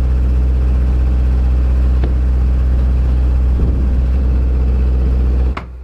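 Engine-driven generator running steadily: a loud, even, deep hum that stops suddenly near the end.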